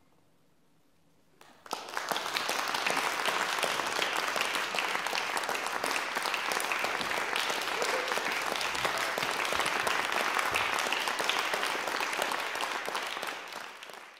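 Near silence for about a second and a half after the last note, then audience applause breaks out suddenly and continues steadily, fading near the end.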